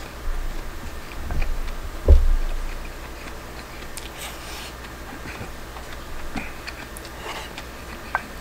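A person eating a shirasu rice bowl with a wooden spoon: chewing and spoon-on-bowl sounds, with a few low thumps in the first two seconds and a short hiss about four seconds in, as a spoonful goes into the mouth. Two sharp clicks near the end.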